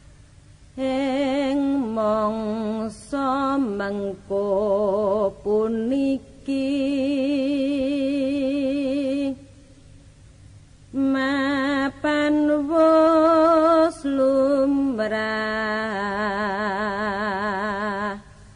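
A solo voice, unaccompanied, slowly singing a Javanese tembang verse: long held notes with a wide, wavering vibrato, stepping between a few pitches, in phrases broken by short pauses.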